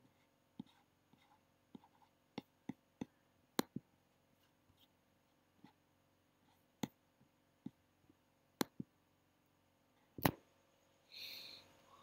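Scattered single clicks of a computer mouse, faint and irregular, about a dozen over the span, with a louder click about ten seconds in followed by a brief rustle.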